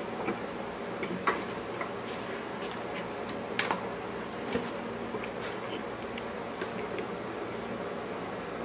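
A few scattered light clicks and taps from the Harbor Freight marine winch being handled and adjusted, spaced irregularly about a second or more apart, over a steady low background hum.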